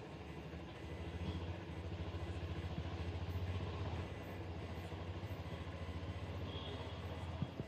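An engine idling out of sight, a steady low rumble with a fast even pulse, slightly louder in the first half; a single sharp click near the end.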